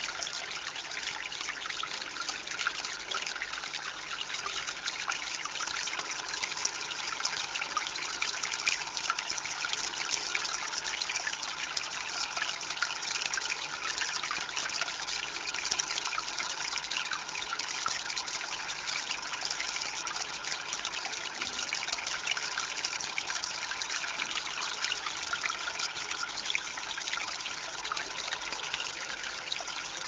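Concrete-and-natural-stone tabletop water fountain running: water trickling steadily over the stones into its pool, with fine splashes and drips.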